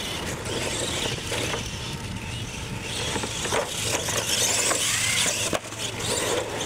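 Two radio-controlled monster trucks racing side by side on concrete: motors and gears whirring and tyres rolling, with several knocks and clatters as they hit ramps and land.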